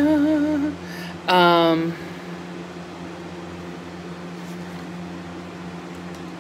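A woman's voice holds a wavering, drawn-out sound that stops under a second in, and gives a short falling vocal sound about a second and a half in. Then a steady hum with a few level tones runs on, from the room's air-conditioning vent.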